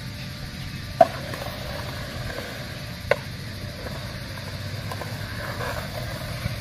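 Skateboard on a concrete skatepark: a steady low rumble, with two sharp clacks, one about a second in and another about three seconds in.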